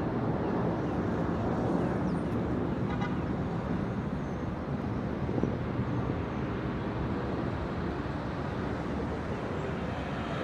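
Steady hum of distant city traffic, with a short car horn toot about three seconds in.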